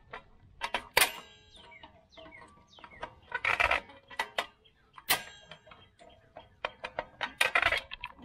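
Metal clicks, clanks and scraping as drum-brake springs are worked off with a brake spring tool, two of the clanks ringing on briefly; a scraping stretch comes about every four seconds.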